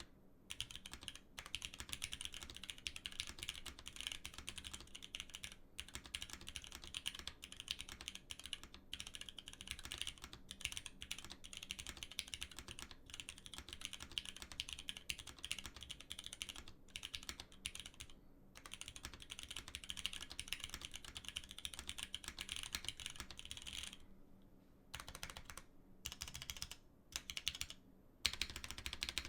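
Continuous fast typing on a GSK 910 65% aluminum keyboard with linear Cherry MX Black switches on an O-ring-mounted carbon-fibre plate: a dense stream of key clacks, breaking off about 24 seconds in and then coming in shorter bursts with gaps between.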